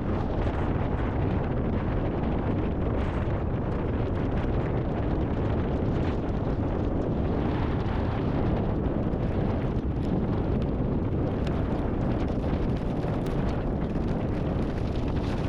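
Storm wind buffeting the microphone: a steady, low, rumbling rush of noise, with a few faint ticks in the second half.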